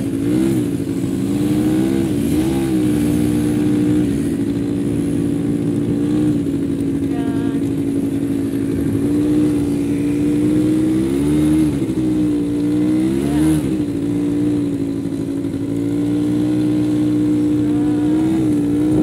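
Quad bike (ATV) engine running at a steady pitch while riding over sand. The revs rise briefly with the throttle several times, most clearly twice a little past the middle.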